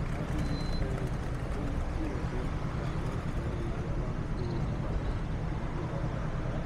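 Busy city street ambience: a steady rumble of road traffic, with indistinct voices of passers-by mixed in.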